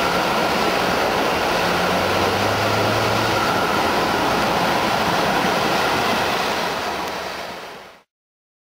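Steam locomotive passing beneath a bridge, a steady loud rush of exhaust and escaping steam that fades away about seven seconds in and cuts off a second later.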